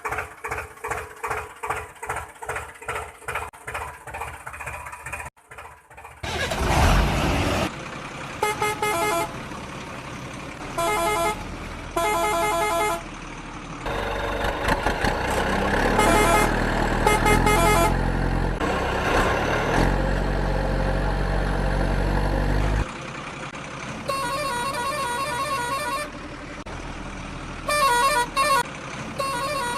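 Vehicle sound effects: a rhythmic engine chugging, then honking vehicle horns in several short blasts, with a low engine rumble in the middle stretch and more horn blasts near the end.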